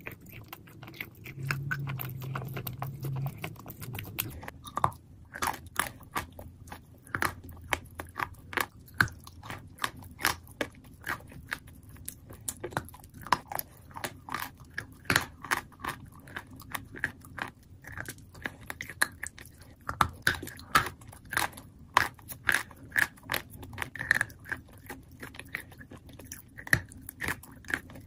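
Close-up chewing of crunchy chalk coated in wet clay paste: sharp, irregular wet crunches, several a second, coming thick and fast from about four seconds in, after a low hum in the first few seconds.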